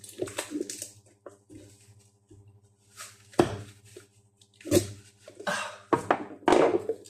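Knocks, clunks and rustles of a metal GEZE overhead door closer being handled and freed from its packaging, with the loudest knocks about three and a half seconds in and a cluster near the end, over a low steady hum.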